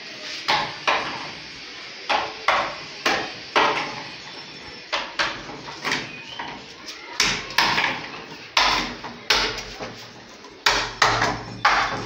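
Hammer blows on woodwork: about twenty sharp strikes at an uneven pace, often two in quick succession.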